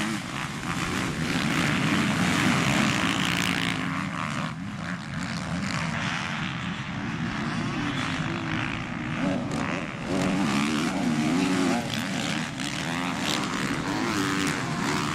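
A pack of motocross bikes racing, their engines revving up and down as they accelerate. The sound eases somewhat a few seconds in, and about ten seconds in louder revving rises and falls again as bikes pass.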